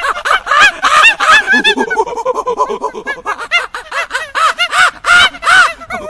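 Monkeys calling: a fast chatter of short, arching calls, several a second and overlapping at different pitches, loudest about a second in and again near the end.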